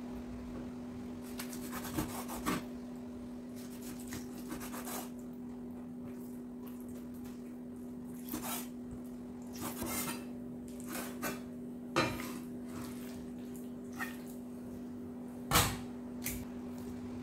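Kitchen knife knocking against a cutting board now and then while raw chicken is cut up: a dozen or so irregular sharp knocks, the loudest near the end, over a steady low hum.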